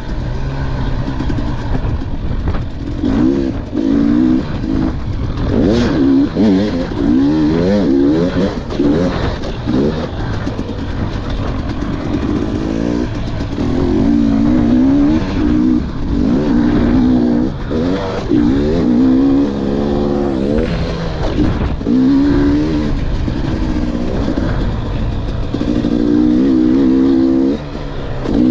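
KTM 300 XC two-stroke dirt bike engine under race riding, revving up and dropping off again and again as the rider accelerates, shifts and brakes around a motocross track, over a steady rushing noise.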